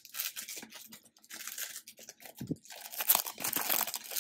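Clear plastic wrapping crinkling and tearing as a small tin case is unwrapped by hand, loudest near the end.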